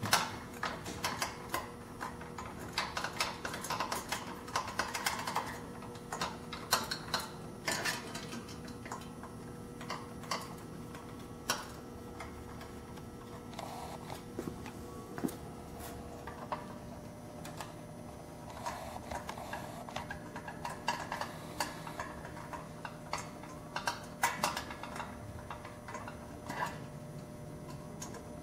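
Hand screwdriver driving machine screws into the threaded holes of a metal display-rack base: irregular clicking and scraping of the tool on the screws, in runs with short pauses.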